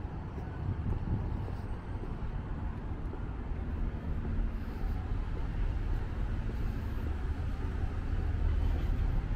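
City street ambience: a steady low traffic rumble with a faint hum through the middle few seconds.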